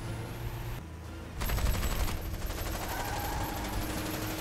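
Rapid automatic gunfire in an animated film's soundtrack, starting about a second and a half in after a low steady hum, and going on as a fast continuous stream of shots.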